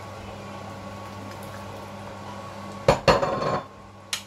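Plate and wooden spatula knocking against a stainless-steel cooking pot as dried fish is scraped into the soup: two sharp knocks about three seconds in, a short clatter after them, and one more click near the end.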